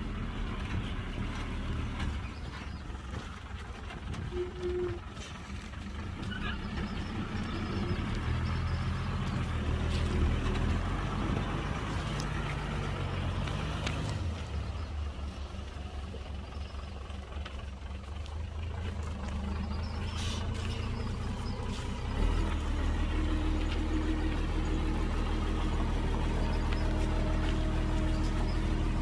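Heavy diesel engines of earthmoving machinery running. One revs up and holds a higher pitch for several seconds about a third of the way in, then drops back. A louder, steady engine comes in with a sudden step up a little past two-thirds of the way through.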